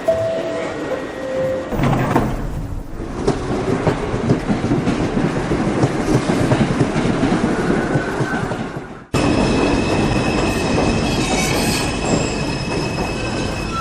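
Subway train rumbling along the track with wheel clatter and squeal. About nine seconds in the sound cuts off sharply and switches to another passage of train noise with a steady high whine over the rumble.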